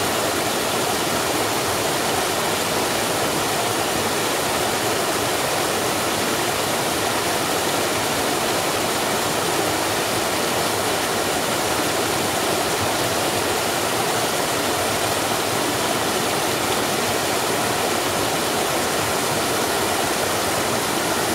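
Small waterfall in a stream pouring down a drop and foaming as it falls: a steady, dense rush of water.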